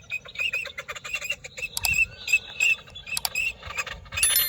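Ducks calling: many short, high calls repeated over and over, with a few sharp clicks among them.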